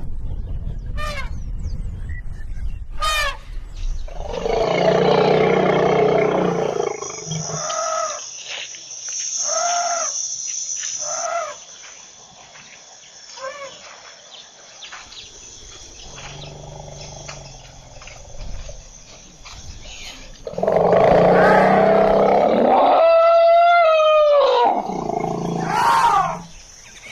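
Elephants trumpeting and roaring. Two long, loud, harsh blasts come about five and twenty-one seconds in, the second ending in a falling tone, with shorter pitched calls between them.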